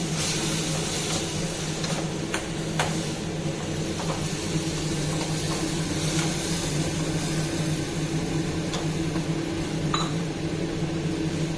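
Steady low motor hum from a kitchen appliance, with a few light clicks of a utensil against the pan.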